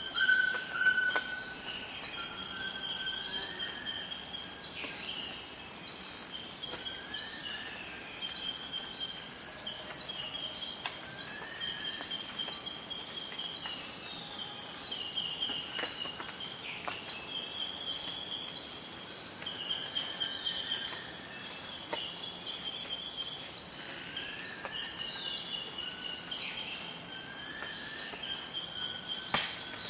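Tropical forest ambience: a steady, high-pitched insect chorus throughout, with short bird calls repeating every second or two over it.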